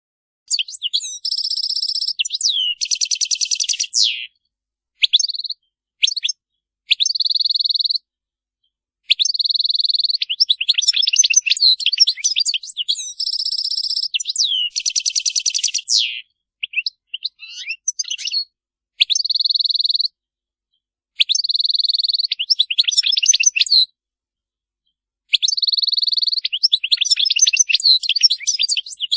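A group of European goldfinches twittering: fast chirps, trills and buzzy notes in bursts of one to several seconds, broken by short gaps of complete silence.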